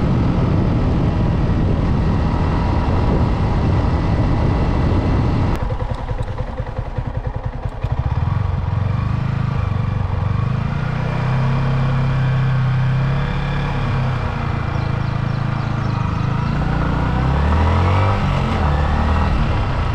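Motorcycle engine running on the move, with wind rushing over the microphone. About five seconds in the rushing eases, and the engine note comes through steadier. Near the end its pitch rises as the bike accelerates.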